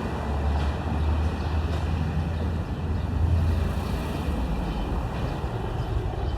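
Street traffic: a steady low rumble of motor vehicles on the road, swelling a little twice as vehicles pass.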